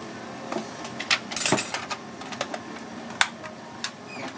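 A handful of short, sharp clinks and knocks of kitchen utensils and dishes at a sushi counter, the loudest about three seconds in, over a steady background hum.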